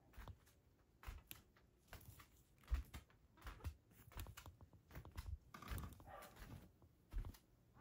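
Soft, irregular footsteps of a person walking across tatami and rug-covered floors, with some camera-handling knocks, and a brief rustle about six seconds in.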